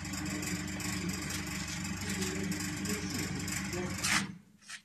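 Electric gear motor and worm gearbox of a torsion machine running steadily with a hum as the chain-driven chuck twists a square steel bar. About four seconds in there is a sharp metallic clank and the machine stops.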